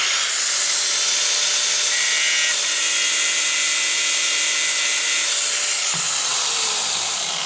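Angle grinder with a 1 mm slitting disc grinding a peened rivet head down flush with a steel armour plate to hide a filled rivet hole. Steady, high-pitched grinding of disc on metal, easing off a little near the end.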